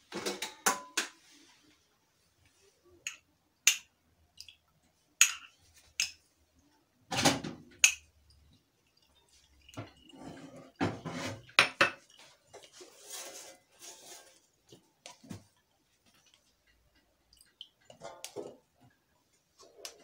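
Metal spoon scraping and pressing grated turnip pulp in a plastic tea strainer over a glass, squeezing out the turnip-honey syrup, with irregular clicks and knocks of spoon, strainer and glass.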